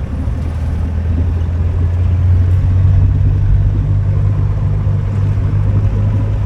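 Taxi car running, a steady low engine and road rumble that grows louder over the first couple of seconds and then holds.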